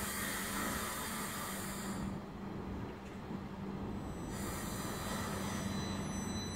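Northern multiple-unit train standing at the platform, giving a steady electrical hum with thin high whines and two spells of loud air hissing: the first fades about two seconds in, and the second starts a little after four seconds.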